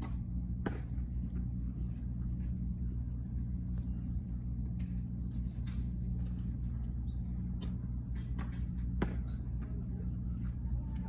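Steady low background rumble with a few faint short clicks over it, the clearest about a second in and near the end.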